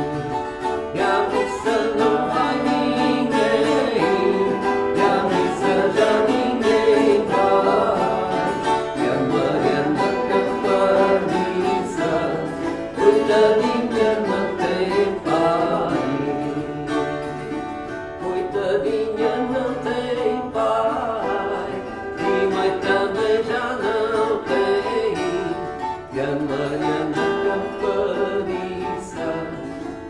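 Two violas campaniças, the Alentejo's wire-strung folk guitars, playing an instrumental passage together with plucked notes and chords.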